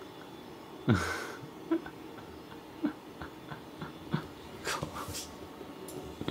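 Soft breathing sounds: a short exhale about a second in, a few faint clicks, and a sniffing breath around five seconds.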